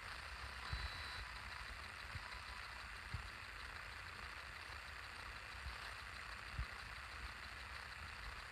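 Faint steady hiss with a few soft low thumps at irregular intervals.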